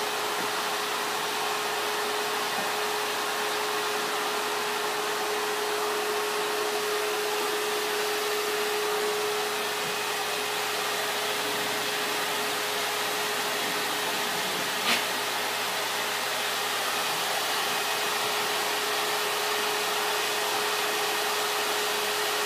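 A household appliance running: a steady whirring noise with a constant mid-pitched hum. There is a single click about fifteen seconds in.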